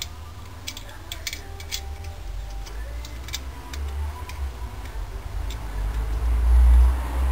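Light, irregular metallic clicks and ticks as the cylinder head nuts of a 66cc two-stroke bicycle engine are fitted and turned by hand. A low rumble runs underneath and swells near the end.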